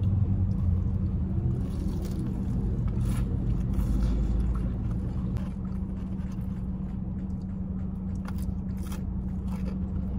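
Steady low hum of a car running, heard inside the cabin, with close eating sounds over it: chewing, and fingers scraping smashed fried chicken and rice in a paper takeaway box, in scattered small clicks.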